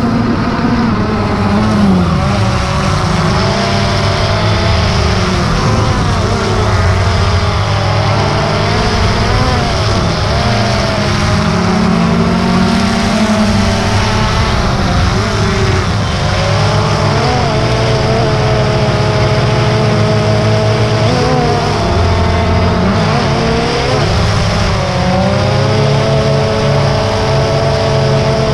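DJI Phantom 2 quadcopter's four electric motors and propellers whining, heard up close from on board, the pitch sliding up and down as the throttle changes and settling to a steadier tone near the end.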